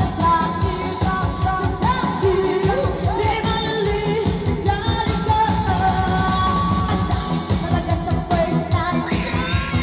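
A woman singing live through a microphone and PA, over an amplified keyboard-band backing with a steady beat.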